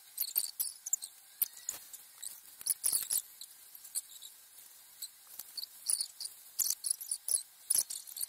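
Toilet paper crinkling and rustling as strips are torn and draped over a person, an irregular scatter of light, sharp crackles.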